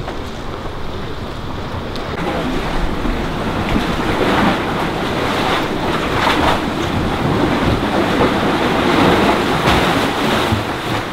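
Waves washing against rocks, with wind on the microphone; the wash swells several times.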